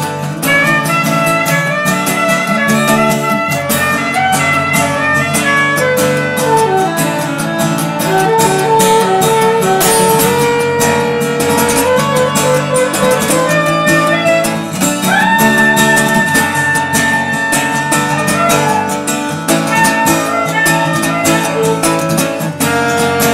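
Music led by plucked guitar, with quick picked notes over a steady beat and one long held high note about two-thirds of the way through.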